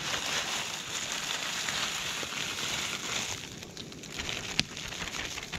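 Dehydrated ground beef and vegetables poured from a plastic zip-top bag into a pot of boiling water on a gas canister camp stove. There is a steady hiss of stove and bubbling water with crinkling and crackling, easing a little past halfway, and a sharp click near the end.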